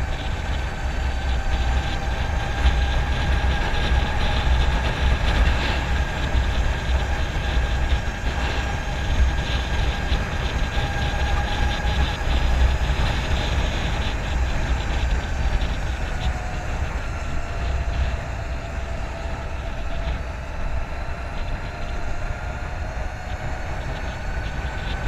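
Harley-Davidson LiveWire electric motorcycle under way: a high electric-drivetrain whine whose pitch drifts with road speed, dipping about two-thirds of the way through and climbing again near the end. Heavy wind rumble on the microphone lies under it.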